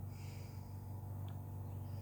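Domestic cat purring: a steady low rumble, with soft breath noise swelling and fading on each breath in and out.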